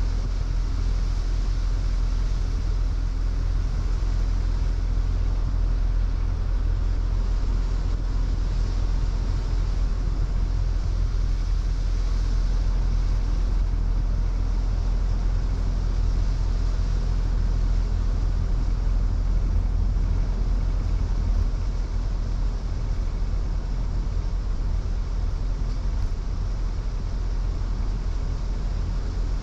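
A car driving steadily on a wet road, heard from inside: a constant low rumble of engine and road noise with tyre hiss over it.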